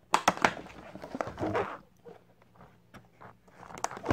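Clear plastic clamshell packaging being handled and pried open by hand: a run of sharp clicks and crackles, a short rustle about a second and a half in, then scattered clicks.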